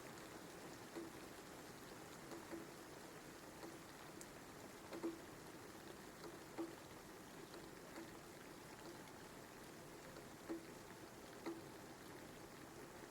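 Recorded rain: a soft, steady hiss of rainfall with separate louder drips landing irregularly, about one every second or so.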